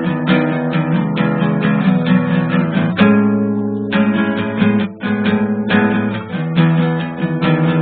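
Acoustic guitar music: strummed chords in a steady rhythm, about two strums a second.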